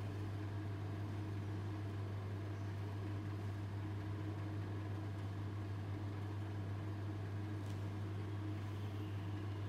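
Steady low hum with a light hiss, unchanging throughout, and a faint click about eight seconds in.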